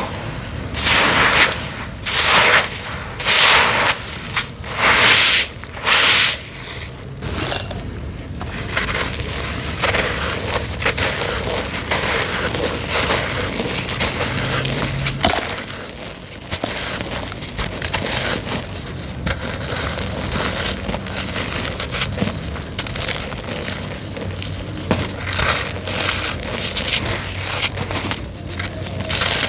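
Crumbly homemade cement being crushed: a run of loud gritty crunches about a second apart over the first eight seconds, then steadier, quieter crackling crunches.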